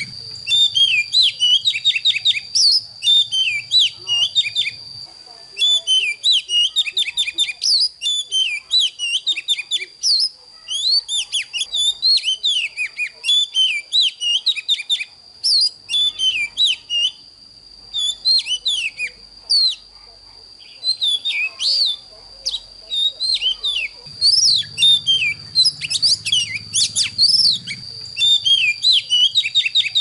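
Oriental magpie-robin singing a fast, varied run of clear whistled notes, slurs and trills, with brief pauses between phrases. A steady high-pitched tone runs beneath the song.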